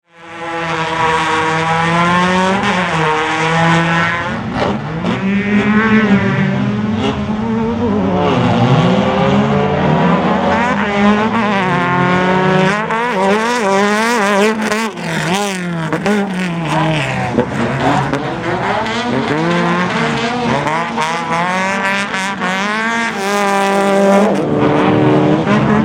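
Class 10 off-road race car engine running hard under racing throttle, its pitch climbing and dropping over and over as it revs up and shifts or lifts. Short clatters come through in the middle stretch.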